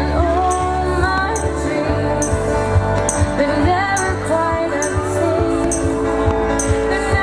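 Music with a woman singing a gliding melody over a steady bass and a regular beat.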